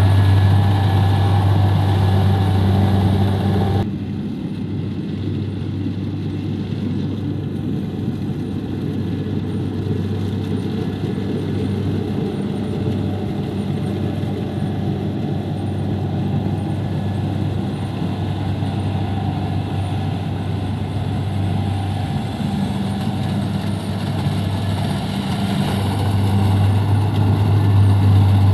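Kubota DC-70 combine harvester's diesel engine running steadily at working speed with a low, even hum. It is louder in the first few seconds and again near the end as the machine works closer.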